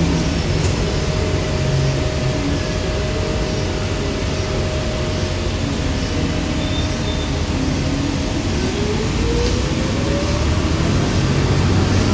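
Cabin noise inside a 2020 Gillig BRT 40-foot transit bus under way: steady engine and road noise, with a whine that rises in pitch about eight seconds in.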